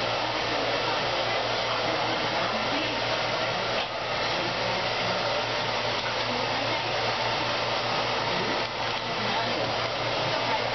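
A hair dryer running steadily.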